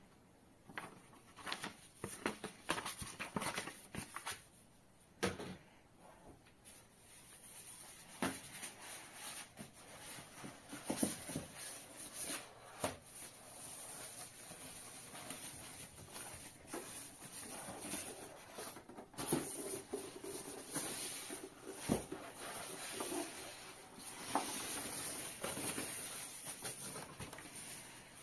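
Hand-handling of packaging during unpacking: paper and plastic wrap rustling and polystyrene foam rubbing and knocking, in irregular rustles with scattered sharp taps.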